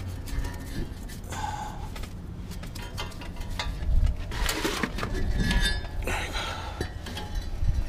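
Light metallic clinks and scrapes of brake pads being worked loose from a 2016 Lexus GX460 front brake caliper, in scattered short knocks with a few louder ones about halfway through.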